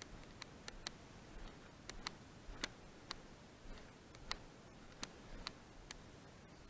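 Faint, sharp, irregular clicks, roughly two a second, made while walking over dry ground, against a faint steady hiss.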